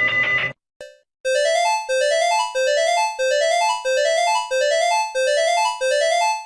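Emergency alert tone: a synthesized run of rising notes, repeated over and over about every two-thirds of a second, starting after a brief gap. Before the gap, the rapid ringing trill of a different alarm cuts off.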